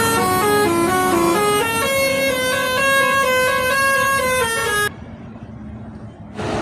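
Bus telolet horn, a multi-note musical air horn, playing a quick tune of stepped notes, then cutting off suddenly about five seconds in, leaving a quieter stretch of background noise.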